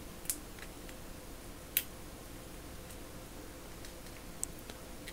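A few light, separate clicks of small metal parts being handled: the ratchet head and its wire retaining ring. The sharpest click comes about two seconds in, over a low steady room tone.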